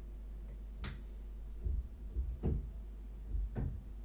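Four or five light clicks and knocks from small parts being handled on a workbench, the first sharp and bright, the rest duller, over a steady low hum.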